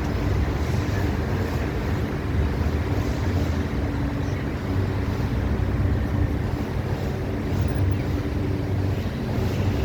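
Steady rushing wind, loud and even throughout, with a faint low hum underneath.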